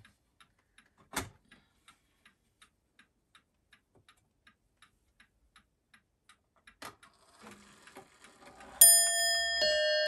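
Seth Thomas Sonora mantel clock ticking steadily, a little under three ticks a second, with a sharp click about a second in and light scraping as the hands are turned. Near the end its large chime bells ring out, two notes struck and left ringing: the quarter chime set off by turning the minute hand.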